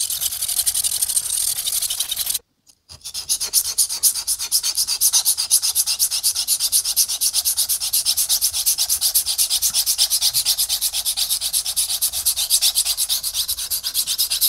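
Straight razor blade scraped in rapid, even back-and-forth strokes across an Atoma 600 diamond plate, a dry rasping hiss. The blade is tilted so the spine stays off the stone, grinding steel away quickly to remove a dent in the blade's nose. There is a brief break about two and a half seconds in.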